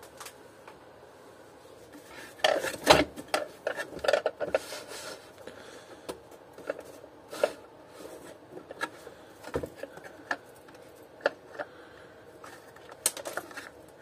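Hard plastic shell parts of a Taurus vacuum cleaner clattering and knocking as they are lifted, turned and set down on a metal workbench. A loud cluster of knocks comes about two and a half seconds in, then scattered clicks and taps.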